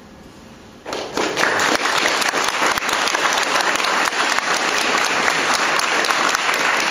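Audience applauding, the clapping breaking out suddenly about a second in and then continuing steadily and loudly.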